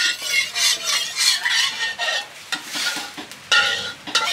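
Spatula stirring and scraping in a pan of food sizzling in hot oil, in quick repeated strokes with a faint metallic ring.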